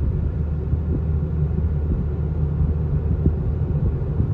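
Steady low rumble of a car on the move, heard from inside the cabin.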